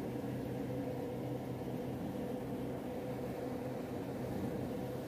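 Steady low hum of room tone, with a faint even drone and no distinct events.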